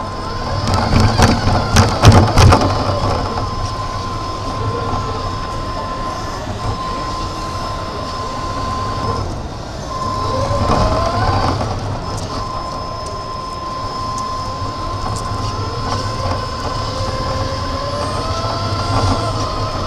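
Radio-controlled model Mercedes driving with the camera on board: a steady high whine from its motor and gearing that drops out briefly about halfway and glides up and down in pitch as it speeds up and slows. There is a cluster of rattling knocks in the first couple of seconds.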